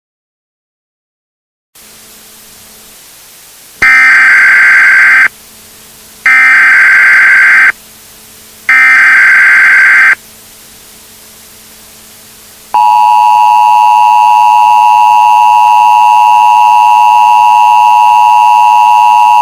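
Emergency Alert System broadcast tones. After a moment of silence and a low hum come three loud bursts of the digital SAME header, each about a second and a half long. About 13 seconds in, the long, steady two-tone EAS attention signal begins.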